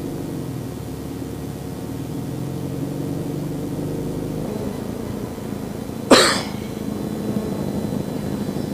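Vehicle engine idling steadily, with one short, loud burst of noise about six seconds in.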